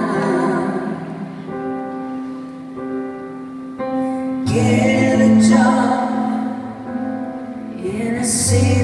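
Live pop ballad: a female lead vocalist singing to keyboard accompaniment. Held chords thin out in the middle, and the music grows fuller and louder from about halfway.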